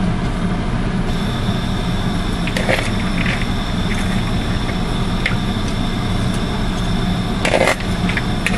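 A steady mechanical hum in a home kitchen, with a faint high whine that comes in about a second in. A few light clicks sound over it, and a louder knock comes near the end.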